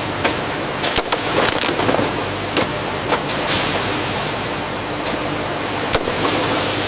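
Factory machinery noise: a steady hiss with a faint high whine, broken by several sharp clanks and knocks.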